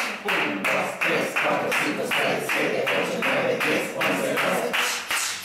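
A group of people making short, sharp 'shh' sounds in unison, about two to three a second, in a staccato breathing exercise for the diaphragm and abdominal muscles, with hand claps keeping the beat.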